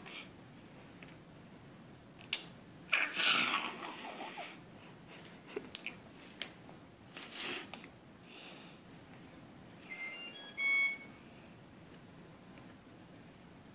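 A toddler eating at the table: brief babbling and breathy vocal sounds about two to four seconds in, and small clicks of a plastic fork against a plastic dish. A short cluster of high beeps about ten seconds in.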